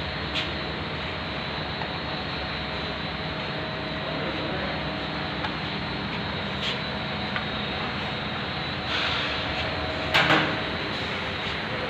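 Steady drone of running industrial machinery, with scattered light clicks, a short hiss about nine seconds in and a loud double clank just after ten seconds.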